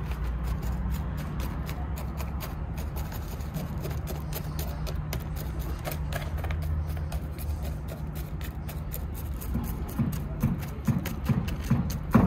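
Background music with a low sustained tone, joined by a steady beat about ten seconds in. Over it come gritty clicks and scraping as coarse granular bonsai substrate is pressed and poked down to fill the gaps under the root ball.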